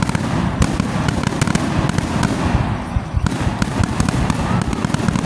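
Fireworks going off in a dense, unbroken barrage: many sharp bangs and crackles overlapping on top of a steady low rumble.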